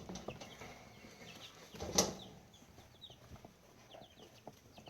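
Baby chicks peeping in short, high chirps, with a brief loud scuffle of flapping and scrambling about two seconds in as one of the chicks is grabbed.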